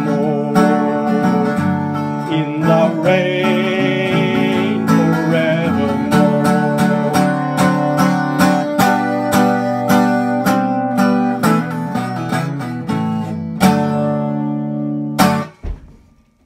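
Guitar strumming the closing bars of a country gospel song, with a short high wavering note a few seconds in. It ends on a last chord about fifteen seconds in that dies away quickly.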